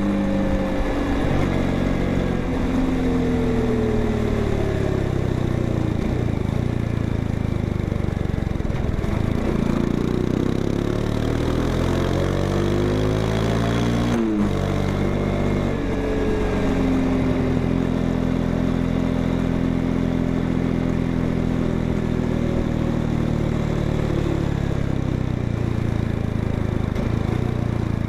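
Honda XRE 190's single-cylinder four-stroke engine and exhaust running, its engine speed slowly rising and falling several times, with a sudden change in pitch about fourteen seconds in.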